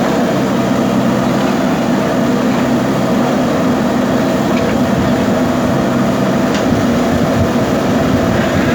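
JCB backhoe loader's diesel engine running steadily under load, with a faint click about six and a half seconds in.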